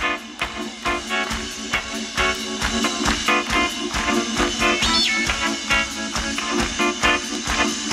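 Live pop band playing an upbeat instrumental passage on drums and electric guitars, with a steady driving beat.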